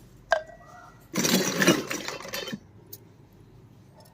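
Miniature toy kitchen pieces being handled: a single short clink, then about a second and a half of rattling.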